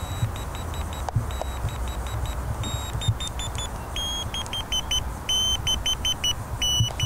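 Morse code beeps from the earphone of a radio direction-finding receiver: a hidden fox transmitter's signal as picked up by the receiver, in long and short high tones. The beeps get louder and a little lower in pitch about four seconds in, over a low rumble.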